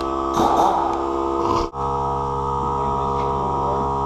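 Steady electrical hum with many overtones, with a short rustling burst early on and a brief dropout near the middle.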